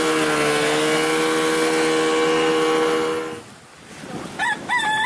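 Small outboard motor driving a dinghy at speed, a steady drone that breaks off about three and a half seconds in. Near the end a rooster starts crowing.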